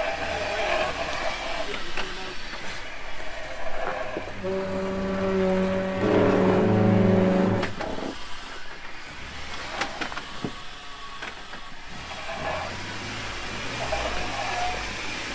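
Jeep Wrangler Rubicon engine running under load as it crawls over rocks, with a held, steady rev from about four and a half to nearly eight seconds in, the loudest part. Sharp clicks and knocks of rock under the tyres are scattered through it.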